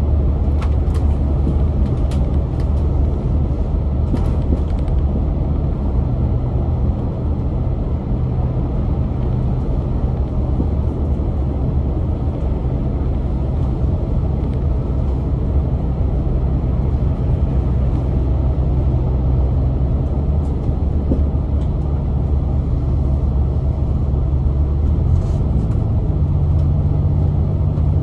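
Volvo B8L double-deck bus's Volvo D8K-350 diesel engine running steadily under way, with road rumble, heard from inside the bus. A few light rattling ticks in the first seconds, and the engine note changes near the end.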